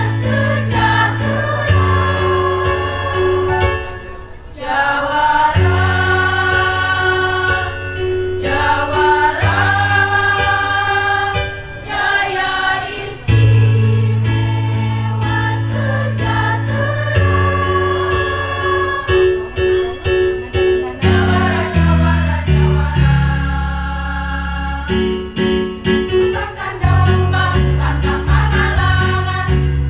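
Women's choir singing a song in several parts, over held low accompaniment notes that change every few seconds.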